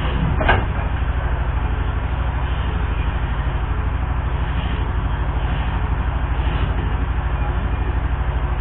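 An engine running steadily with a low, rapid, even pulse, and one sharp clank about half a second in.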